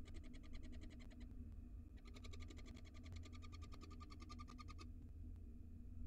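Barn owl giving rapid, evenly pulsed twittering calls in two runs. The first breaks off a little after a second in, and the second starts about two seconds in and lasts nearly three seconds. A steady low hum runs underneath.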